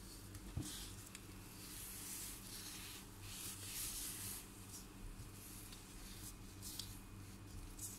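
Faint rubbing and rustling of gloved hands handling slices of rolled cinnamon-roll dough on a granite countertop, with a few light taps, over a steady low hum.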